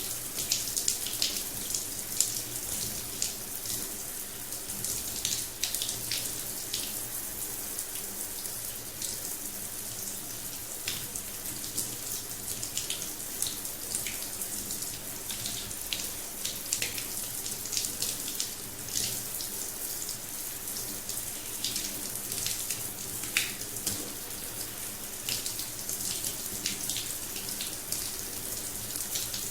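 Rain showerhead running: a steady hiss of falling water with many sharp, irregular splashes of drops striking the surface below.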